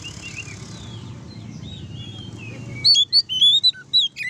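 Oriental magpie-robin singing: soft chirps, then about three seconds in a run of loud, clear whistled notes rising and falling. This is the full, open song that bird keepers use to rouse other magpie-robins into singing.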